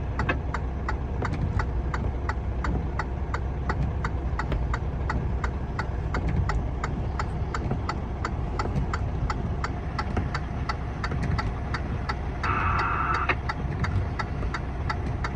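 Vehicle engine idling, heard from inside the cab, with a steady mechanical ticking about two and a half times a second. A short electronic warble sounds about twelve seconds in.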